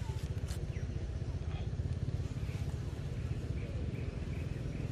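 Steady low rumble with a rapid pulsing texture, and a few faint short high chirps over it.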